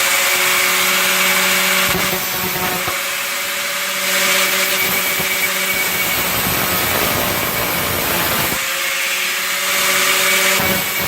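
Handheld power tool running steadily on the trunk's sheet metal, a loud grinding hiss over a steady motor hum. The hum shifts about two seconds in and again near nine seconds.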